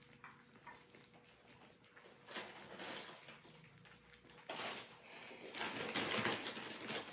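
Three-week-old French bulldog puppies lapping and smacking food off silicone lick mats, a dense irregular crackle of many small licks, faint at first and growing louder about halfway through.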